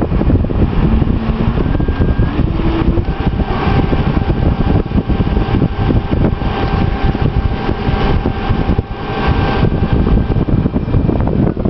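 Siemens servo motor running under a bench test, its shaft turning at roughly 1,300 to 3,200 rpm with a contact tachometer pressed against it. A loud rough rumble runs throughout, and a steady whine comes in about three seconds in and cuts off near the end.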